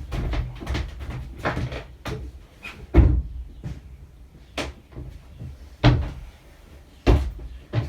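Irregular hard knocks and thuds, the loudest about three, six and seven seconds in, as old boat toilet pipework and fittings are wrenched loose and bang about in the heads.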